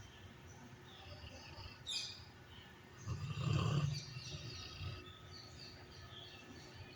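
A sleeping pet snoring: one loud snore about three seconds in, lasting about a second. Birds chirp faintly in the background.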